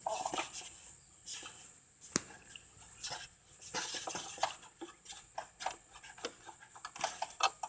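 Light metallic clicks and clinks of hand work on a lawnmower as a part is taken off, with one sharper click about two seconds in.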